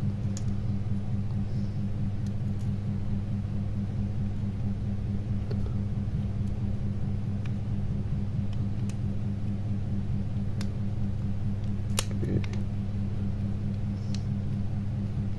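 A steady low hum with scattered light clicks as the small plastic and metal casing parts of a Nokia N71 are handled and fitted together; the sharpest click comes about twelve seconds in.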